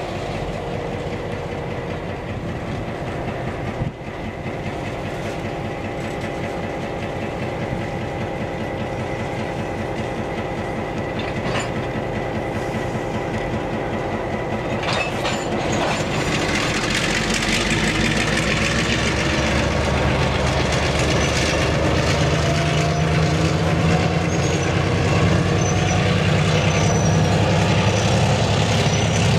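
EMD SW1500 switcher's 12-cylinder two-stroke diesel running as the locomotive moves slowly with a string of boxcars, growing louder from about halfway through.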